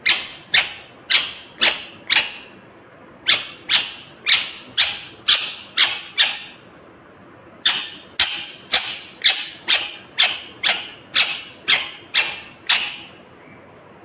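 Rose-ringed (Indian ringneck) parakeet giving loud, harsh screeching calls, repeated about twice a second in three bouts with short pauses between.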